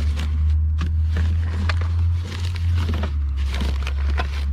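Old wrapping paper crinkling, with small knocks and clicks as wrapped dishes are unpacked from a box, over a steady low hum.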